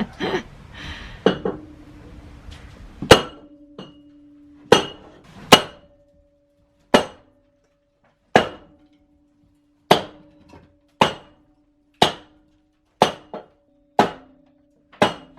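A sledgehammer strikes a metal pipe about eleven times, roughly a second apart, and each blow leaves a ringing metal tone. The blows are driving a rusted-in-place stair lift chair along its rail to break it loose. Lighter metal clatter comes before the first blow.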